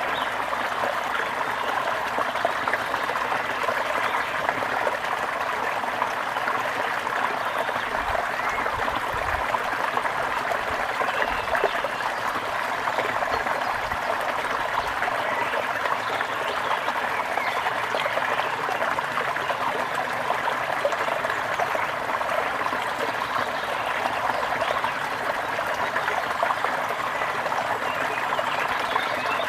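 Gentle river flowing: a steady, even rush and babble of water.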